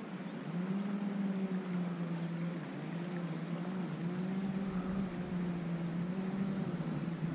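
A boat motor running with a steady low hum that shifts slightly up and down in pitch and grows a little louder about half a second in.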